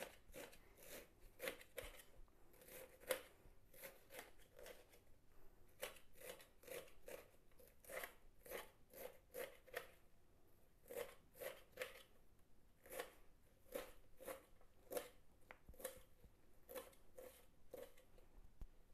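Kitchen knife finely slicing red amaranth leaves on a steel plate: faint, crisp cuts, about two to three a second, in runs broken by short pauses.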